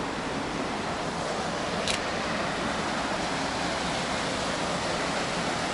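Steady rush of flowing stream water, with a single brief click about two seconds in.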